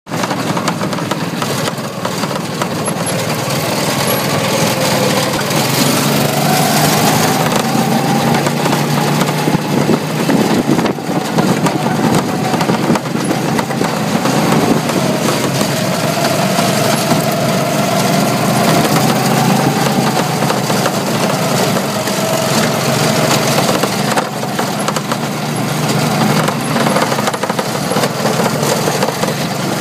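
Go-kart's small petrol engine running under way, its whine rising and falling in pitch as the engine speed changes.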